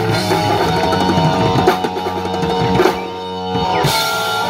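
Live rock band playing loudly on electric guitars, bass guitar, keyboard and drum kit, with a cymbal crash about four seconds in.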